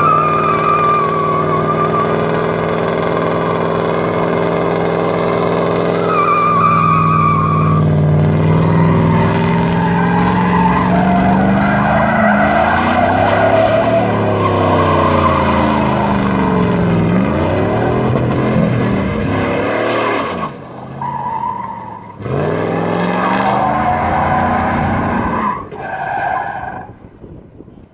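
Old pickup truck being drifted: its engine revs hard, rising and falling, with long stretches of tyre squeal. The engine sound drops off about twenty seconds in and then picks up again, and a last short tyre squeal comes near the end.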